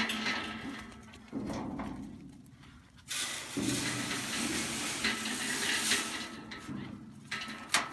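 Grain being poured into a feeder, a steady hissing rattle for about four seconds starting about three seconds in, with rustling and handling noises before it.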